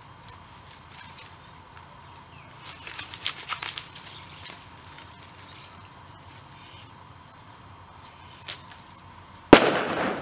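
Dry pineapple leaves rustling and snapping as they are stripped off a plant by hand, with scattered soft clicks. Near the end comes one sharp crack, the loudest sound, followed by about half a second of crackling.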